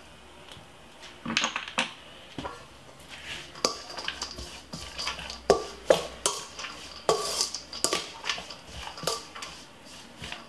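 Stainless steel spaghetti server clanking and scraping against a stainless steel mixing bowl while tossing spaghetti, in irregular strikes starting about a second in. The bowl rings briefly after the harder hits.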